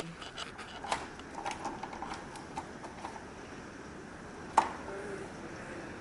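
Steady hiss of hurricane rain and wind outside, heard from indoors, with a few faint ticks and one sharp click about four and a half seconds in.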